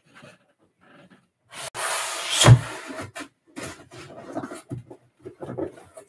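Handling noise at a wobbly table: a rush of rustling and knocking, with one loud thump about two and a half seconds in, then scattered softer knocks and rustles.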